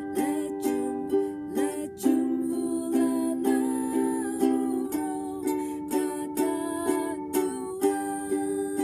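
Ukulele strummed in a three-beat waltz pattern, about two strums a second, changing chord roughly every three seconds through the G, C and D major chords of a simple song in G.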